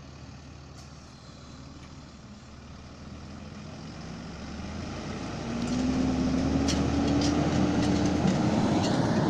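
Hi-rail work truck's engine running and growing louder as the truck drives past close by. In the last few seconds its note rises steadily as it accelerates away.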